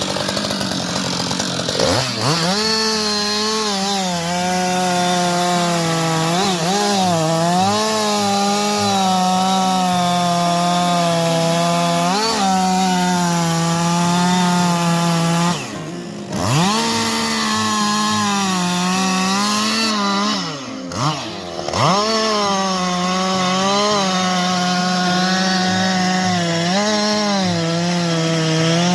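Chainsaw running at high revs while cutting wood, its pitch sagging and recovering several times under load. The throttle eases off briefly about halfway through and again a few seconds later.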